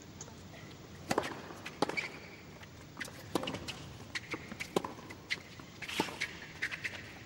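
A tennis rally on a hard court: tennis balls struck back and forth with racquets, sharp pops roughly every second or so, with quieter ball bounces and footwork between the hits.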